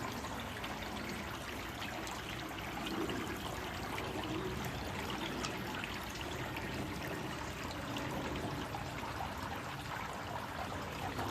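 Water trickling and splashing steadily, with many small fine splashes.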